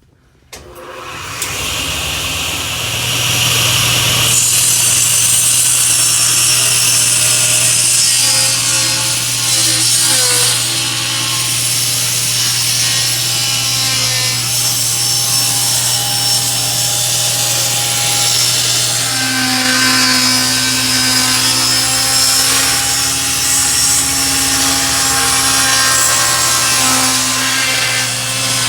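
Table saw starting up about half a second in, then running with a steady hum while its blade slowly cuts a curved edge into a board.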